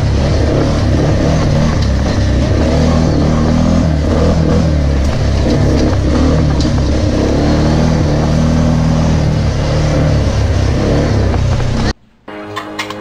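ATV engine running as the four-wheeler is driven along a dirt trail, with a steady low engine note and ride noise. It cuts off abruptly near the end, and music starts after a brief gap.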